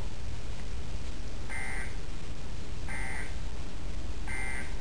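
Three short electronic beeps, about a second and a half apart, from a television's emergency alert for a severe thunderstorm warning, heard in the background over a steady low rumble.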